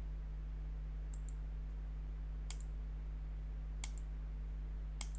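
A few sharp separate clicks of a computer mouse and keyboard while values are entered: a quick pair about a second in, then single clicks every second or so. A steady low electrical hum runs underneath.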